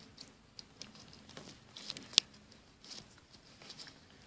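Crunchy slime being squeezed and poked between fingers, giving scattered soft crackles and small pops, with one sharper pop about two seconds in.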